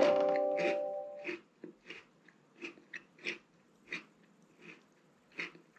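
A short plucked-guitar music cue rings out and fades over the first second. Under and after it comes crunching chewing of a chocolate-coated malt biscuit, with about a dozen crunches roughly every half second to second.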